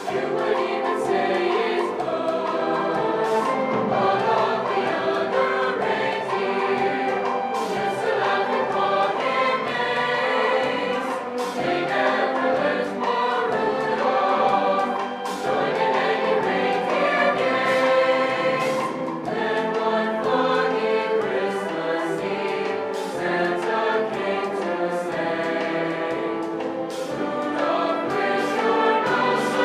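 A choir singing, many voices in long held notes.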